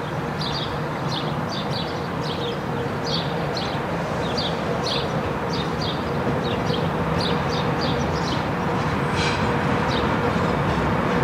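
DB class 111 electric locomotive approaching with its train, a steady rumble and hum growing slowly louder. Birds chirp over it throughout.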